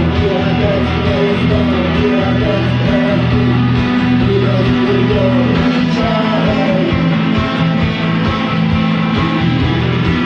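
Rock band playing: guitar, bass and drums in a steady rock groove.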